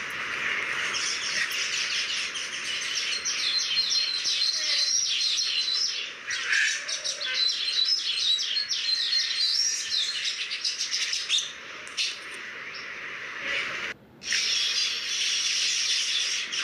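Small birds chirping and calling continuously, with a high, thin trill running through the middle part.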